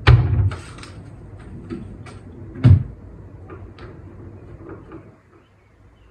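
Two heavy thuds, one at the start and a second about two and a half seconds in, with light clicks and knocks between them, typical of a door or cupboard being handled and shut.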